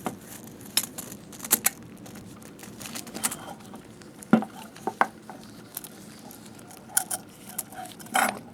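Scattered small clicks and knocks of metal parts being handled and fitted as a slit lamp's bearing assembly is put back into its base. The loudest knock comes a little past the middle.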